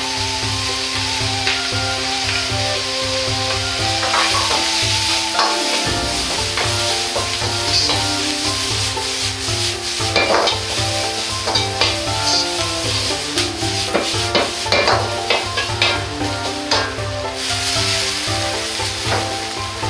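Cabbage, carrot and minced meat sizzling in a hot wok while a metal wok ladle scrapes and clanks against the pan in a stir-fry; the ladle strikes come thicker about halfway through as the food is tossed.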